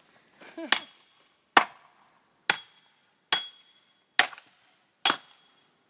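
A second axe hammering down on an axe stuck in a log, driving it through to split the wood: six sharp metal-on-metal strikes a little under a second apart, each with a short metallic ring.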